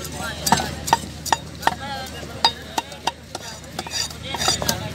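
Cleaver chopping through a thick piece of queenfish on a wooden chopping block: a run of sharp, irregularly spaced knocks, about one or two a second.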